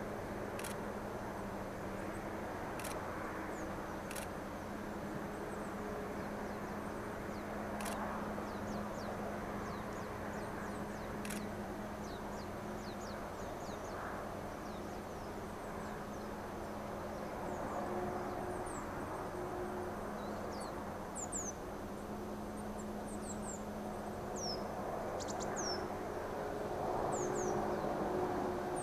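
Steady distant drone of a DD51 diesel-hydraulic locomotive's engines hauling a freight train, echoing across the valley as the train goes out of sight. Small birds chirp in short high calls over it, more often in the second half, and a few sharp clicks come in the first dozen seconds.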